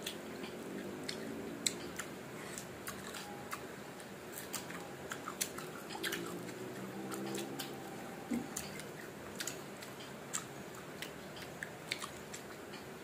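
Firm green mango slices bitten and chewed close to the microphone: crisp crunches and wet mouth clicks, irregular throughout.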